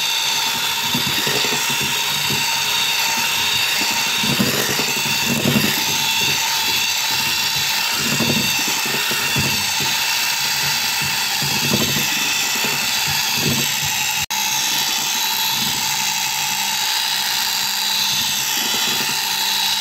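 Electric hand mixer running steadily, its twin beaters whisking dry cocoa and flour into the wet mixture in a glass bowl until it turns into smooth chocolate cake batter. The whir drops out for an instant about fourteen seconds in.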